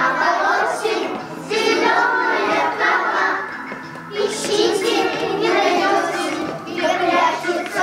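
Small children singing a song together over a recorded backing track.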